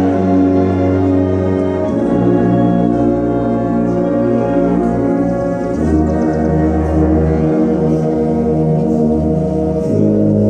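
Drum corps brass line playing slow, sustained chords, moving to a new chord about every four seconds.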